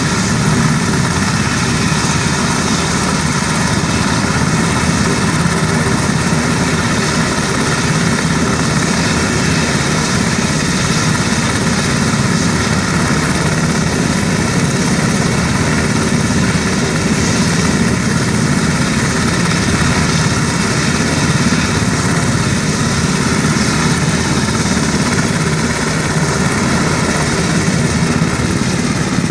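UH-60 Black Hawk helicopter running on the ground, its twin turboshaft engines and main and tail rotors turning at speed before lift-off. The sound is loud and steady, with no change in pitch or level.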